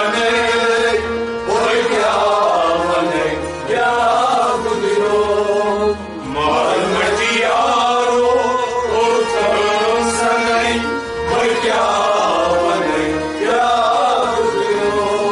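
Kashmiri Sufi kalam: men singing over a harmonium and string instruments, with a steady held drone and an even low beat.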